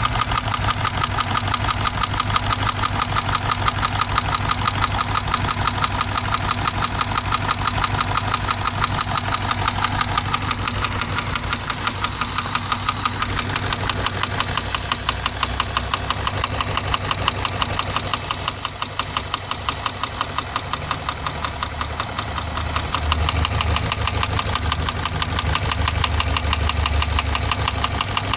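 Subaru engine running with a steady, rapid, evenly spaced knock: engine knock bad enough that the owner is weighing repair against a replacement engine.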